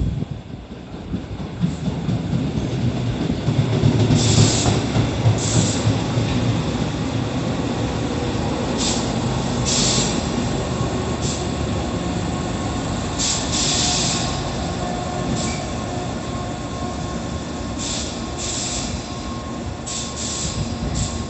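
Tobu 8000 series electric commuter train running on the rails with a continuous rumble, loudest about four seconds in. Repeated short, high-pitched squeals sound from the wheels or brakes.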